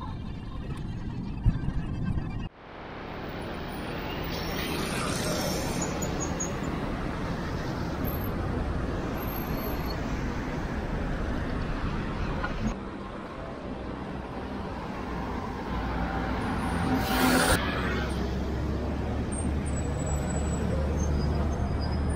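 Steady road traffic noise from vehicles, cutting out abruptly about two and a half seconds in and then resuming. There is a short, sharp hiss about seventeen seconds in.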